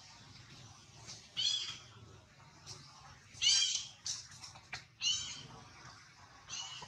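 Macaque giving four short, high-pitched cries, spaced a second and a half to two seconds apart.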